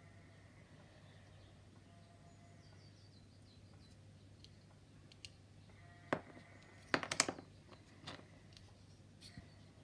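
Light clicks and taps of plastic model-kit parts being handled and set down on a cutting mat, with a cluster of clicks about seven seconds in, over a low steady hum. Faint birdsong in the background.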